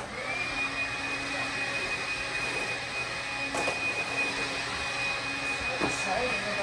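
A small electric motor running steadily in the room, a whirring hiss with a thin high-pitched whine held on one note, with two light knocks about halfway through.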